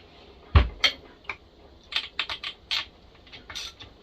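Hand tools and small metal parts being handled on a bench: a single thump about half a second in, then a run of light, irregular clicks and taps.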